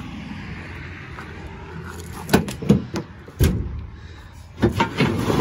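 Footsteps on gravel, then a run of sharp knocks and clunks at the back of a pickup truck and its bed, several close together about two seconds in and more near the end.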